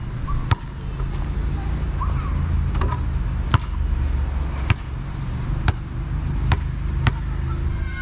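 A basketball bouncing on an asphalt court, sharp thuds about once a second. Under them runs a steady, high, pulsing insect chorus and a low rumble.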